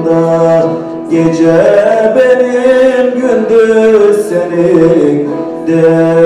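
A man singing a Turkish folk melody to his own bağlama (saz) accompaniment, in long held notes that slide and ornament between pitches over a steady low drone.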